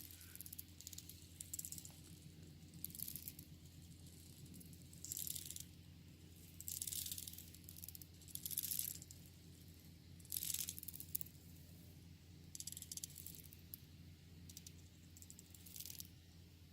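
Termites making short, faint rattling bursts of fine rapid ticks, about ten of them, irregularly spaced a second or two apart; such rattling is typical of termites drumming in alarm. A steady low hum runs underneath.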